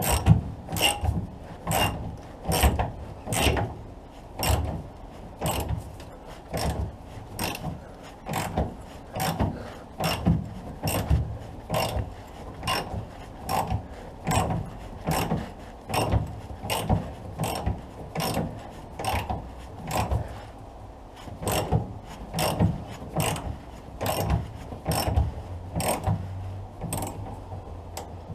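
Hand ratchet spanner clicking on each return stroke, about two strokes a second, as it works a cross-member nut loose. The bolt is turning freely rather than seized in its rubber bush.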